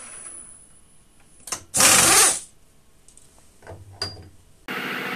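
WMT HM-46 CNC mill: the spindle's hum dies away, then a loud half-second hiss and a few clicks as the tool is unclamped and changed at the mill head. Near the end the mill starts running again with a steady machine sound.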